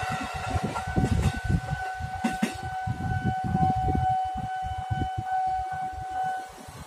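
Level-crossing warning alarm sounding one steady tone that cuts off shortly before the end, as the train has cleared the crossing. A low uneven rumble runs underneath, with a single sharp click a little past two seconds in.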